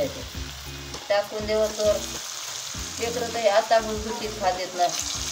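Oil bubbling and sizzling in a kadhai as food fries. A woman's voice talks over it in two short stretches.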